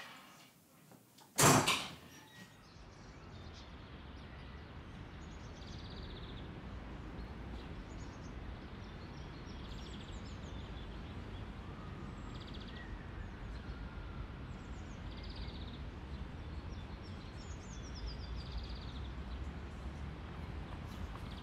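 A door shuts with a single loud bang about a second and a half in. Then a steady low outdoor background, with birds chirping now and then.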